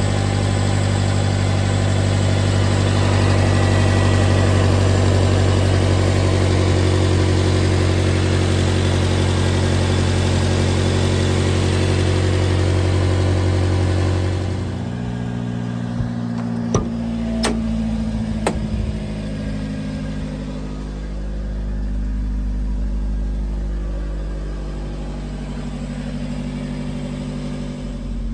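Supercharged 1994 Subaru Sambar's four-cylinder engine running at a raised, steady speed, then dropping to a lower idle about halfway through. A few sharp clicks come soon after the drop.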